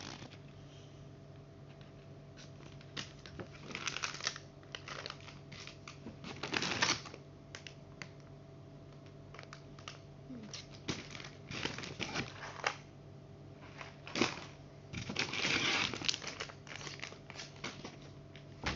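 Plastic packaging crinkling and rustling in irregular bursts, with small clicks, as packaged items are handled and counted. A steady low hum runs underneath.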